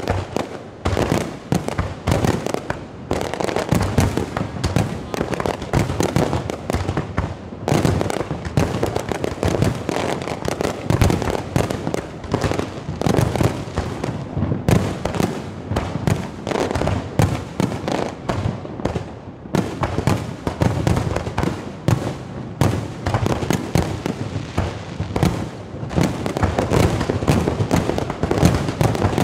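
Aerial fireworks display: a rapid, unbroken string of shell bursts and bangs, many overlapping.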